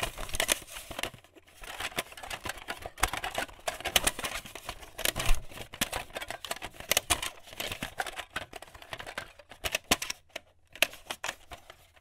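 Crackling static and irregular glitch clicks, a sound effect for an animated video logo, over a faint steady low hum.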